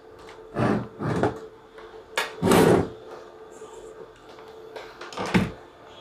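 Handling knocks and clunks as a keyboard cable is plugged into a desktop motherboard: a few separate knocks, the loudest two and a half seconds in, over a faint steady hum.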